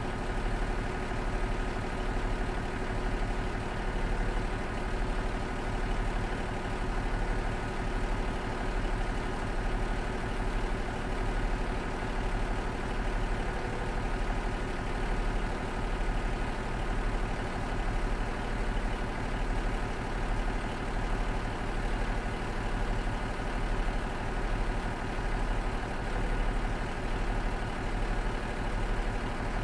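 Cummins DMF14HZ straight-six diesel engine of a JR KiHa 47 railcar idling steadily after its start-up, with a slow, regular throb in its loudness.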